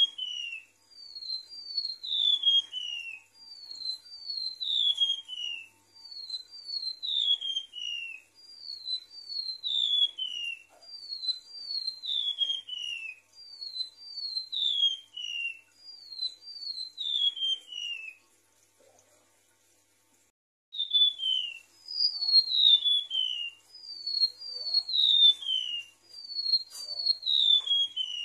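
Golden-bellied gerygone (remetuk laut) song played as a lure recording: repeated phrases of thin, high whistled notes, each phrase stepping down in pitch, about one phrase every two seconds, with a brief pause a little past the middle.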